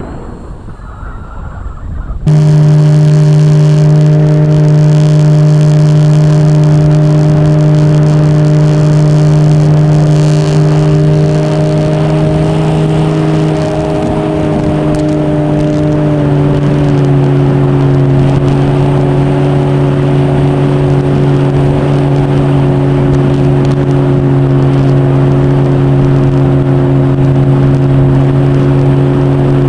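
Electric motor and propeller of an RC model airplane running steadily at high throttle. After a couple of seconds of wind noise it cuts in suddenly and loud, and its pitch steps down slightly twice as the throttle eases.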